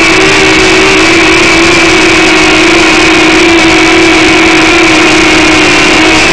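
DM007 toy RC quadcopter's electric motors and propellers running in flight, a loud steady whine right at the onboard camera's microphone, its pitch wavering slightly.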